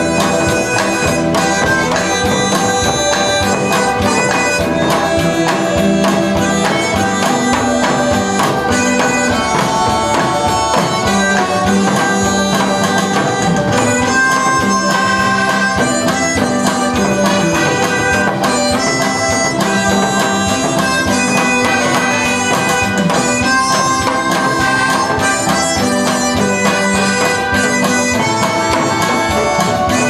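Harmonica playing a melody through a stage microphone and PA, with a hand drum beaten along in time.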